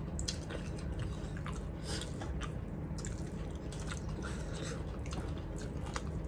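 Close-miked eating sounds: chewing with small wet mouth clicks and smacks, coming irregularly, over a steady low hum.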